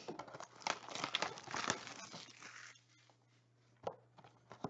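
Packaging crinkling and tearing as a Mosaic football card box is opened and its packs handled: dense rustles and crackles for about two and a half seconds, then a pause and a single click near the end.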